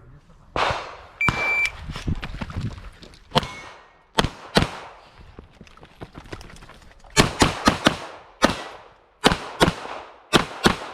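An electronic shot timer beeps once, briefly. Then a semi-automatic pistol fires a string of more than a dozen shots, mostly quick pairs and short bursts, with pauses between them as the shooter moves and engages new targets.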